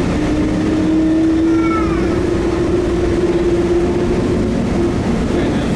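Bombardier Innovia APM 256 rubber-tyred automated train running along its guideway: steady running noise with an electric whine that fades out about four and a half seconds in.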